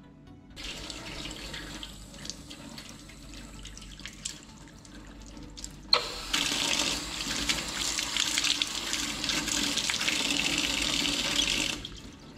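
Water running from a tap, starting about half a second in; after a knock just before the six-second mark it runs louder, then is shut off near the end.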